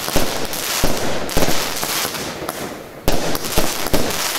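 Two Vuurwerkmania Unabomber cakes firing together: a fast, irregular string of shot launches and bangs over a dense crackling of bursting crackling stars. The shots thin out briefly about two and a half seconds in, then pick up again with strong bangs.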